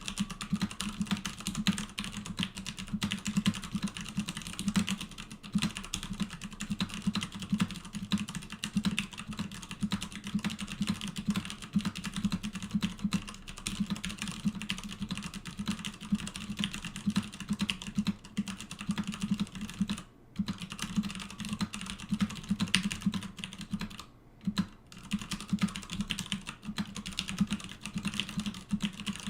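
Continuous fast typing on a KUL ES-87 tenkeyless mechanical keyboard with Cherry MX Clear switches and double-shot ABS keycaps: a dense run of keystroke clacks, broken by two short pauses about twenty seconds and twenty-four seconds in.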